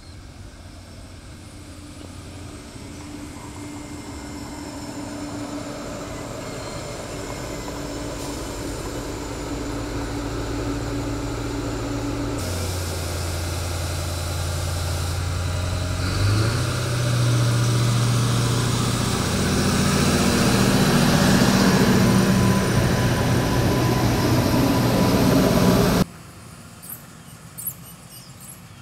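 Adelaide Metro 3000-class diesel railcar running past the station platform, its engine hum growing steadily louder and its engine note stepping up about sixteen seconds in. The sound cuts off suddenly near the end, leaving faint outdoor background with a couple of soft clicks.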